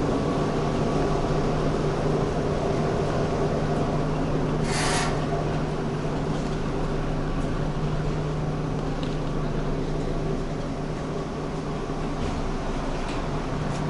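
Steady running noise inside a REKS express electric train carriage, with a constant low hum and a short hiss about five seconds in.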